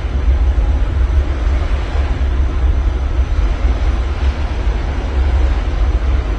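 Ocean waves washing on the shore, a steady surging hiss that swells again about four seconds in, under a heavy low rumble of wind buffeting the microphone.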